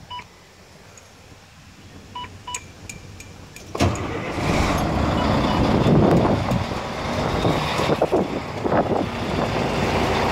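Volvo 780 semi truck's diesel engine: two pairs of short dash warning beeps with the key on, then the engine is cranked and catches about four seconds in and runs on loudly. It is started to build air pressure and inflate the newly fitted suspension air bags.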